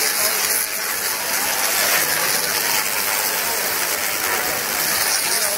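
Tesla coil arcs crackling and buzzing in a fast, steady rattle, loud and dense in the highs.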